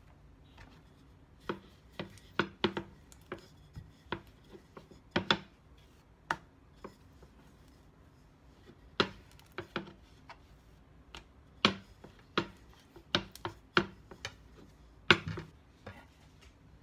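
Wooden rolling pin clacking and knocking on a plastic cutting board while dough is rolled out flat, in irregular sharp knocks with the loudest near the end.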